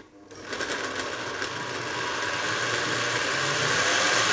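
Blender jar on a kitchen stand mixer, blending cucumber chunks, mint and a little water into a purée. The motor starts about a third of a second in and runs steadily, growing a little louder with a faint whine that rises in pitch as the contents liquefy.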